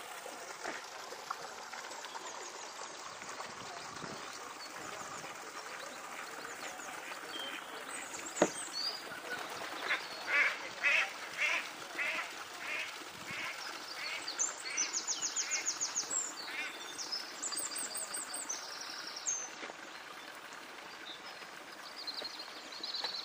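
A duck quacking, a run of about eight quacks at roughly two a second around the middle, followed by a small bird's high, rapid trills.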